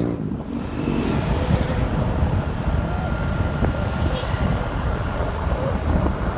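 Wind rushing over the microphone of a moving motorcycle, with the bike's engine and road noise underneath as a steady rumble.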